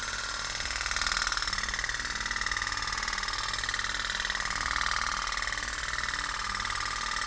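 Candle-heated putt-putt (pop-pop) boat made from a shaving can, running with a fast, steady putter. Water in its sealed boiler flashes to steam and condenses over and over, pushing water out of its two copper tubes and sucking it back in.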